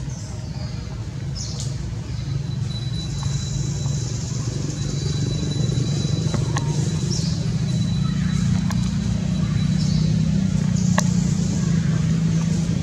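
Low steady motor rumble, like a vehicle engine running close by, growing gradually louder, with a high steady hiss and a few faint clicks.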